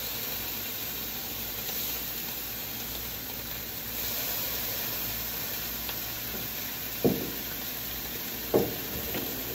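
Raw bacon sizzling steadily on a hot Blackstone flat-top griddle as the slices are laid down. Two short knocks sound near the end, about a second and a half apart.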